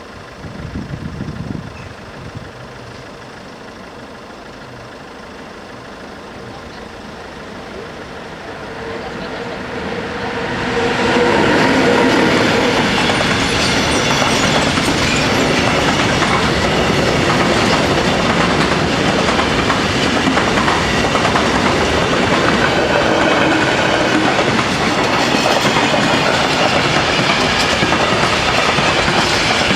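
A train approaching and passing through a railroad crossing. It grows louder over a few seconds, then runs past loud and steady with the clickety-clack of wheels over rail joints.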